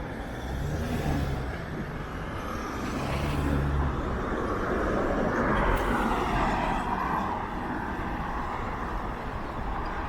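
Road traffic going past: car engines and tyre noise, with a low engine hum in the first few seconds and a vehicle swelling past around the middle.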